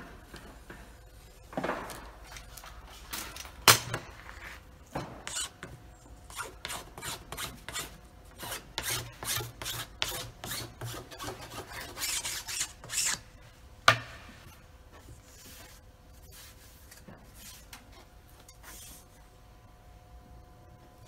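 Hand file scraped in short, quick strokes, about two or three a second, along the edge of a wooden board, cleaning the edge where flawed contact-cemented edge banding was stripped off. Two sharp knocks stand out, about four seconds in and near the end of the strokes.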